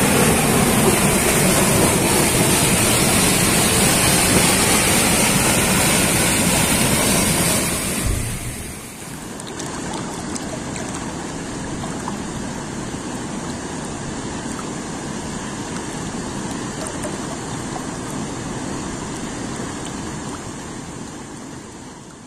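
Waterfall water rushing over rocks, loud and close. About eight seconds in it drops to a softer, more distant steady rush, fading away near the end.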